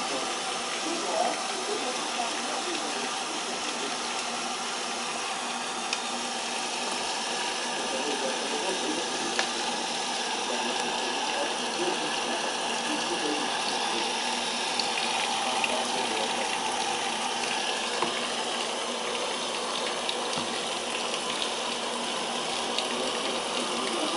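Brastemp BWL07A washing machine filling with water at the start of its wash cycle: a steady rush of water pouring into the tub.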